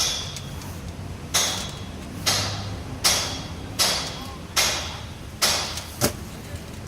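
Hammer blows on metal: seven sharp strikes at a steady pace, a little under one a second, each ringing briefly.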